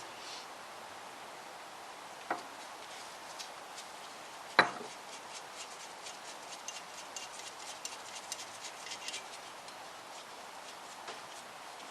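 Hand tools on the cylinder head studs of a Classic Mini engine block: two sharp metallic clinks, the second the louder, then a few seconds of light, irregular ticking as the studs are worked loose.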